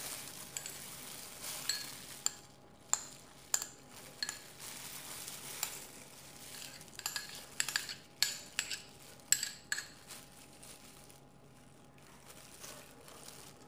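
Spoon and ceramic bowls clinking and scraping as cooked quinoa is knocked out of a small bowl into a salad bowl: about a dozen sharp, irregular clinks with soft scraping between, thinning out near the end.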